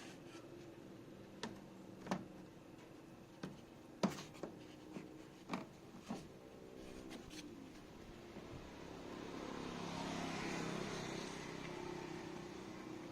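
Sharp clicks and knocks from handling parts of an LG washing machine under repair, then about eight seconds in a steady whirring hum swells up and holds.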